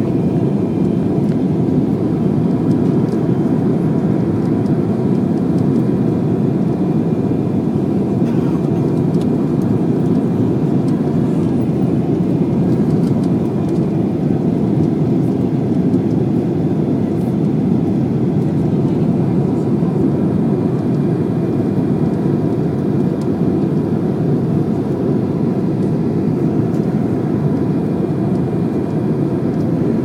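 Steady roar of jet engines and rushing air heard inside an airliner cabin as it descends on approach, with a faint, high, steady whine above it.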